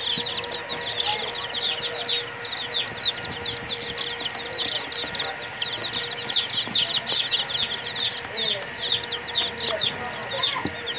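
A boxful of young chicks peeping nonstop: many short, high, falling peeps from many birds at once, overlapping several times a second.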